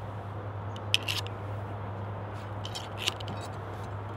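Ramrod scraping and tapping in the barrel of a Thompson Center Hawken muzzleloader as it pushes a patched round ball down onto the powder charge: a few short scrapes and clicks about a second in and again around three seconds in, over a steady low hum.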